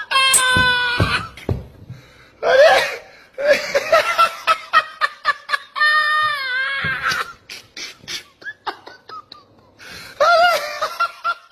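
A man laughing hysterically: long high-pitched shrieks of laughter alternating with quick runs of short "ha-ha" bursts, in several bouts.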